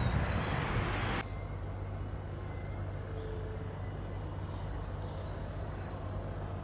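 EMD GT22 diesel locomotive approaching slowly, its engine a steady low drone. A loud rushing noise cuts off suddenly about a second in.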